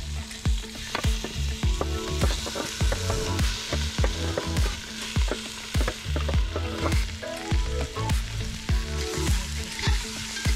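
Chicken pieces sizzling in oil in a hot cast-iron potjie pot as they are spooned in, with a metal spoon scraping and clinking on the metal tray. Background music with a steady beat runs underneath.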